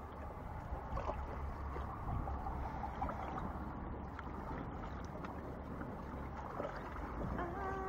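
Small sea waves washing against shoreline rocks, with a low wind rumble on the microphone. Near the end there is a short pitched sound, like a brief hum.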